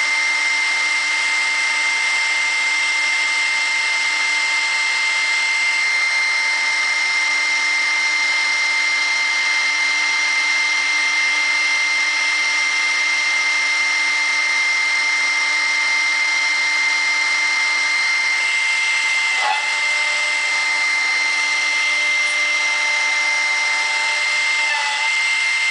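1.7 kW spindle of a CNC router running at speed with a 10 mm cutter milling PVC: a steady high-pitched whine over the hiss of cutting. The whine dips briefly about twenty seconds in.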